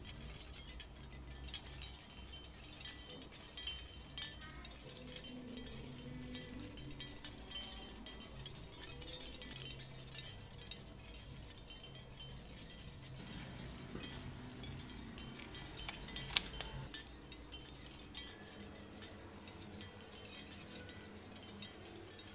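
Soft background music with chime-like tones over a light, even rhythm, and changing low notes underneath. One sharp click stands out about sixteen seconds in.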